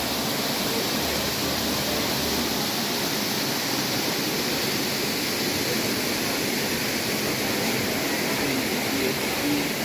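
Steady rush of a waterfall, an even hiss of falling water with no break, and a low rumble under it for the first couple of seconds.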